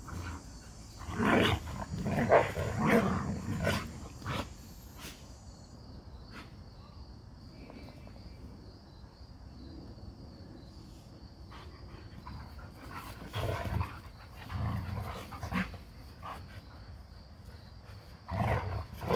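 Two dogs play-fighting, growling and grumbling at each other in rough bursts. The growls are loudest in the first few seconds and again near the end, with a quieter stretch in between.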